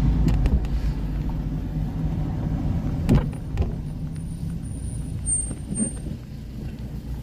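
Car road and engine noise heard from inside the cabin, a steady low rumble that eases as the car slows to a stop in traffic. There is a sharp knock about three seconds in, and a brief thin high whistle a little later.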